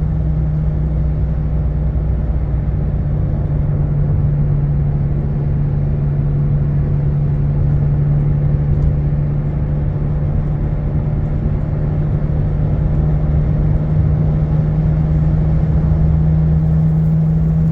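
Car driving at a steady highway speed of about 60 mph, with a steady low hum over the road rumble. The driver takes the hum for a failing wheel bearing rather than a dragging brake.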